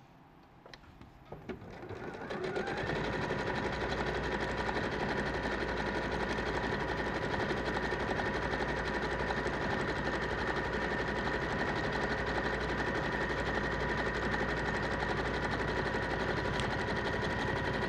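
Sewing machine running a wide zigzag stitch along a raw fabric edge to stop it fraying. It starts about two seconds in, after a few small clicks, and then runs steadily at an even speed.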